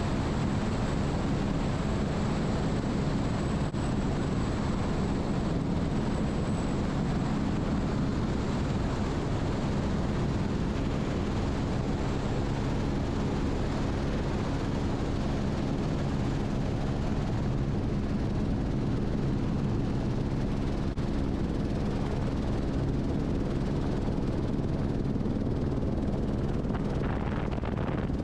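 Eurocopter AS350 B3e Esquilo helicopter running steadily in flight: a dense, even drone of rotor and turbine made of several low steady tones over a broad rush. A thin high whine fades out about seven seconds in.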